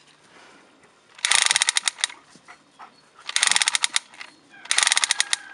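Toy pistol noise-maker rattling off three short bursts of rapid clicking, each about half a second long.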